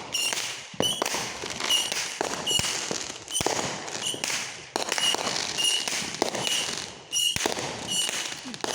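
Fireworks going off in a rapid run of sharp bangs and crackles, many reports with fading tails. Behind them a short high chirp repeats about once a second.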